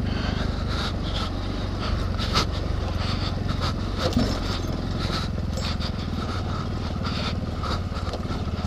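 Dirt bike engine running at a steady, moderate pace while riding over a bumpy dirt trail, with a few short knocks from the rough ground.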